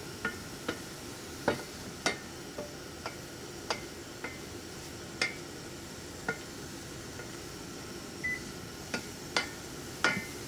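Wooden spatula stirring sliced green onions and ginger frying in sesame oil in a stainless steel pot: a light steady sizzle with irregular sharp clacks of the spatula against the pot.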